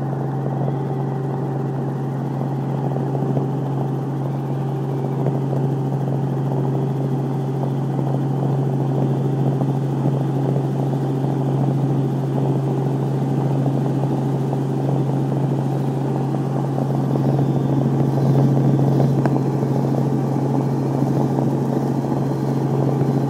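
Robinson R44 helicopter heard from inside the cabin in flight: the steady drone of its six-cylinder Lycoming piston engine and rotor, with a strong low hum, growing slightly louder in the last few seconds as it climbs out.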